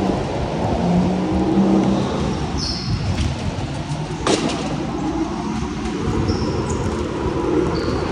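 Go-kart running at speed on an indoor track, heard from the driver's seat: a steady rush of motor and tyre noise with a low hum. A few short high-pitched squeaks come through, and there is a single sharp knock about four seconds in.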